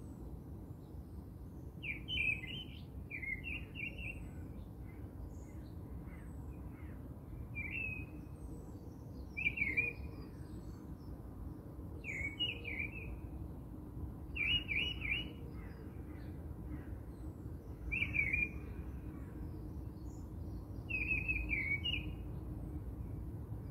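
A small bird chirping in short repeated phrases every two or three seconds, over a low steady hum.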